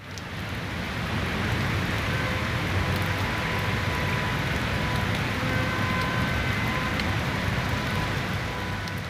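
Heavy rain pouring steadily onto paving and foliage, a dense hiss with a low rumble underneath, fading in over the first second.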